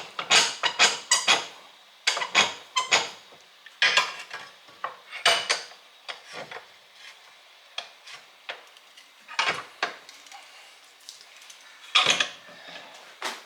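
Metal parts and tools clinking and clanking in irregular clusters of sharp knocks with short ringing, as a block and the bent yard-cart hitch bar are set up and clamped in a bench vise. The knocks come thick in the first few seconds, then sparser, with a loud one near the end.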